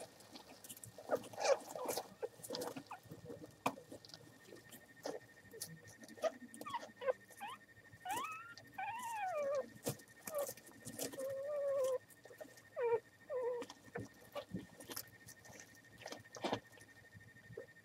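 Two-week-old American Hairless Terrier puppies squeaking and whining as they crawl and nuzzle over each other, with rustling and crackling straw bedding under them. The whines bunch up in the middle, the longest one about halfway through rising then falling in pitch.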